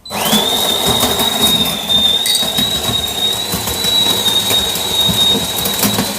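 De'Longhi Magnifica Plus bean-to-cup coffee machine running, a steady high whine over a loud hissing, rattling noise that starts suddenly and cuts off abruptly just after the end.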